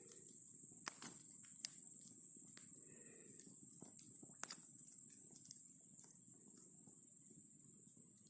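Campfire crackling, with a few sharp pops over a low steady rush, against a steady high chirring of insects.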